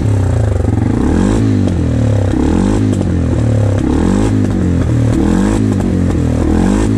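2019 CF Moto 450L ATV's single-cylinder engine running just after its service, blipped up and down about five times, each rev rising and falling in pitch over a steady idle.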